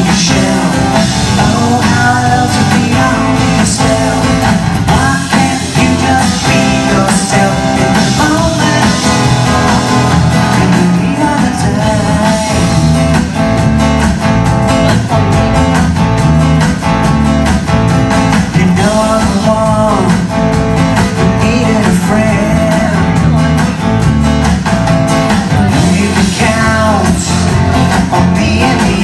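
A live rock band playing a song: drums, keyboard and electric guitar amplified through a PA, with a voice singing over them.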